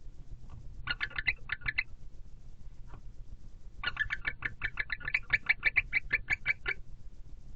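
Barn owl chittering: a short burst of rapid clicky notes about a second in, then a longer run of them from about four seconds in, stopping near the end.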